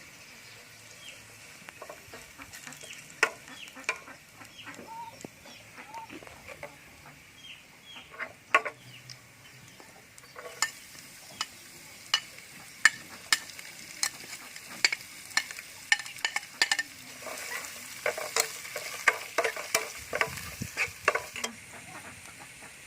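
Cooking in a pan: food sizzling while a utensil stirs, with many irregular sharp clicks and taps, busier in the second half. A few short high chirps sound in the first few seconds.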